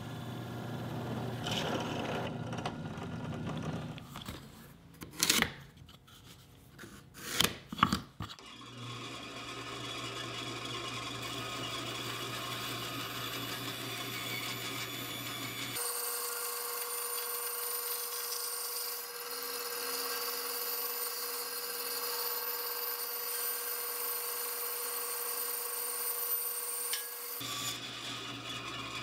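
Drill press boring a 1 1/8-inch Forstner bit into a wooden board, followed by a few sharp knocks about five and seven seconds in. Then a bandsaw runs steadily as it cuts the board.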